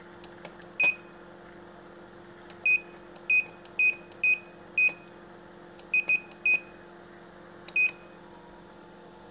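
Sharp washing machine's electronic control panel giving about ten short, identical high-pitched beeps at irregular intervals, as its buttons are pressed, over a steady low electrical hum.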